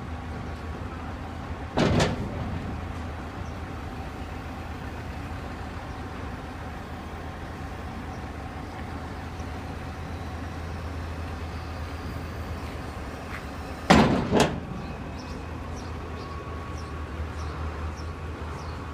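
Tractor diesel engine idling steadily, with a sharp knock about two seconds in and a loud double knock some twelve seconds later.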